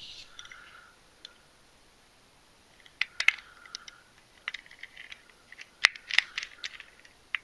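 Small Torx T9 screwdriver working the tiny end-plate screws into the plastic case of a Baofeng UV-5R handheld radio: light clicks and scrapes, bunched from about three seconds in to near the end.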